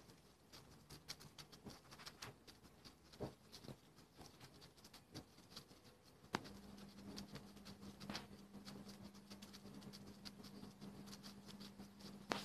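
Guinea pigs crunching dry pellets from a bowl: faint quick crunches and clicks, several a second. A low steady hum comes in about halfway through.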